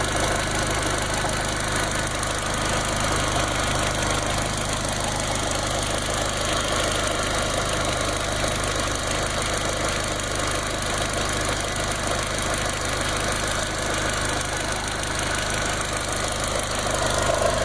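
Volkswagen GTI 1.8T turbocharged four-cylinder engine idling steadily, with a slight rise in level near the end.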